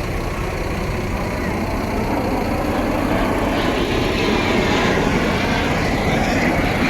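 Jet aircraft flying past, a steady roar that grows louder about three seconds in, with faint voices of onlookers underneath.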